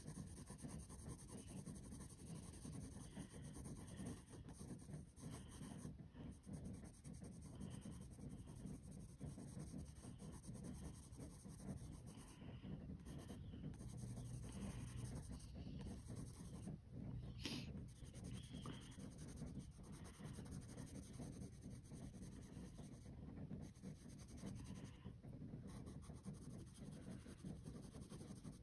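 Faint scratching of a wooden pencil shading on sketchbook paper, in short repeated strokes.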